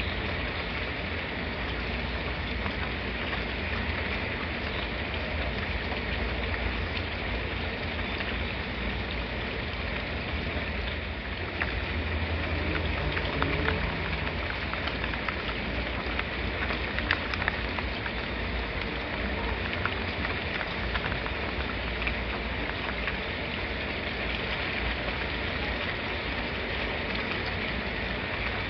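Steady rain falling: a continuous hiss with scattered sharper drop ticks and a low rumble underneath.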